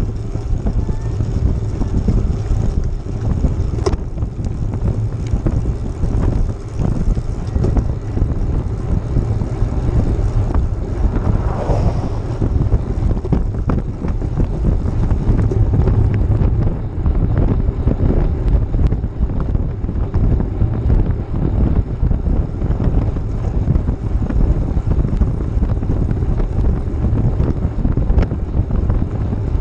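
Wind buffeting an action camera's microphone while riding along a road, a steady loud rumble.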